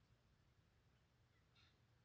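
Near silence, with one faint, short call near the end.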